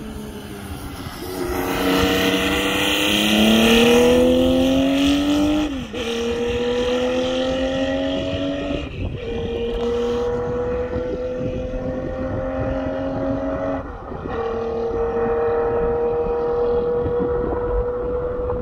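1976 Benelli 750 Sei's inline six-cylinder engine through its six-into-six exhaust, accelerating past at its loudest about four seconds in, then pulling away through three upshifts. Each time the note climbs steadily through the gear and drops at the change.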